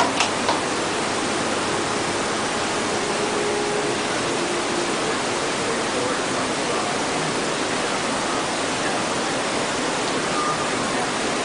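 Steady, even hiss of background noise, with a couple of faint clicks just after the start.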